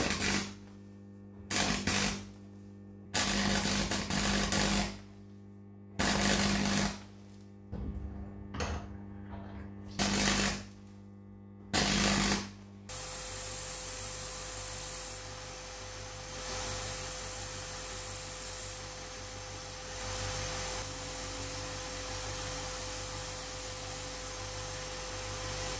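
Electric arc welding in about seven short bursts of buzzing crackle, laying weld into the deep scuffs of a steel screwdriver shank. About halfway through this gives way to a belt grinder running steadily as the welded shank is ground down against the belt.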